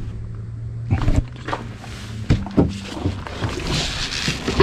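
A low, steady engine idle hum that breaks off about halfway, with a few knocks and rustles as someone climbs into the driver's seat of a side-by-side off-road vehicle.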